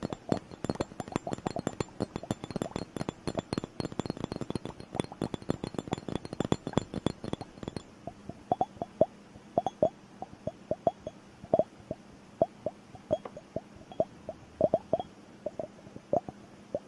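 Tapping on a liquid-filled bubble timer: a fast, dense run of taps, then about eight seconds in, sparser separate taps, about three a second, each with a slight upward pitch.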